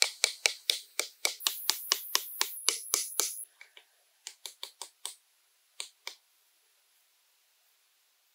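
Sharp knocks of a hammer tapping small bamboo stakes into the ground, about four a second. After about four seconds the knocks come slower and fainter, and they stop a little after six seconds.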